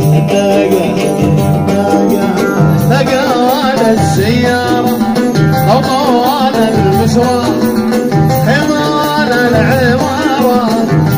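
Live Arabic folk music, the instrumental opening of a song: an oud and a melodic line that wavers in pitch, over a steady beat with jingling percussion.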